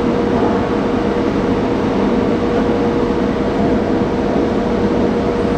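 Steady machine drone with a constant mid-pitched tone running through it.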